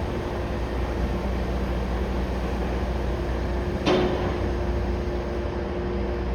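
Steady low rumble of heavy-vehicle engines running at a crane lift site. About four seconds in comes a single sharp knock that rings briefly.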